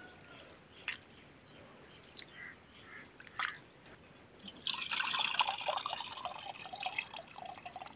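Rinse water from soaked rice trickling out of a steel bowl through the fingers into a steel pot, starting a little past halfway. Before that, only a couple of faint knocks.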